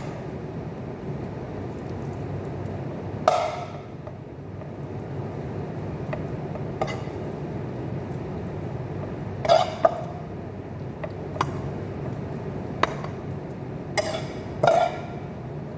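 A metal spoon clinking and scraping against a bowl and a glass baking dish while sautéed chicken is spooned out, with scattered clinks every second or two, a few of them ringing briefly, over a steady low hum.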